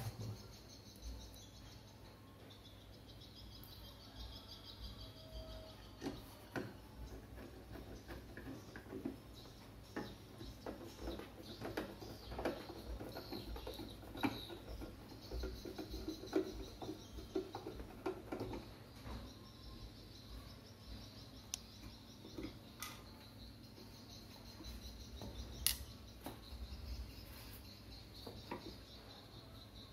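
Scattered light clicks, taps and knocks of a monitor stand neck being handled and attached to the plastic back of an LED monitor, with faint birds chirping in the background.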